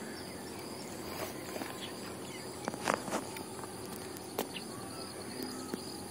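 Steady high insect chirring, crickets or similar, with a few faint splashes and knocks from someone wading through waist-deep water.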